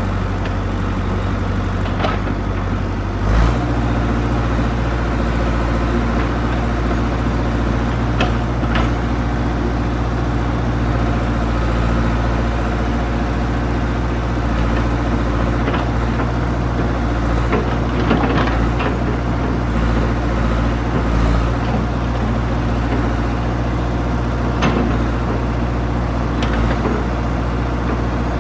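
Old backhoe's engine running steadily, stepping up to a higher throttle about three seconds in, with a few scattered knocks and clanks over it.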